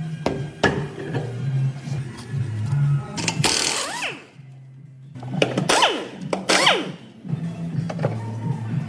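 Background music with a low, stepping bassline. Three loud, short noisy bursts cut in, each followed by a falling swoop in pitch.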